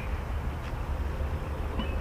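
Riverside outdoor ambience: a steady low rumble with a few short, faint bird notes near the end.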